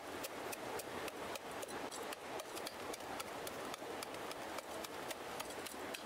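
Wooden stick pounding and crushing charcoal lumps in a stainless steel pot: a quick, irregular run of sharp crunches and clicks, several a second, over a steady hiss.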